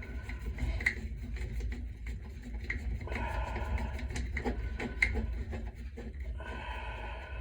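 Scattered small clicks and taps of hand work on a part, with two rasping stretches of about a second each, one near the middle and one near the end.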